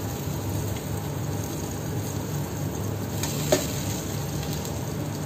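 Eggplant slices and green chillies frying in oil in a steel pan, a steady low sizzle. A single sharp click about three and a half seconds in.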